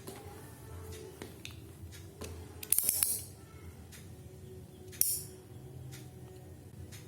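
Packaging of a smartphone box being handled and opened: small clicks and two loud, short rasping bursts, the first about three seconds in and lasting about half a second, the second briefer about five seconds in.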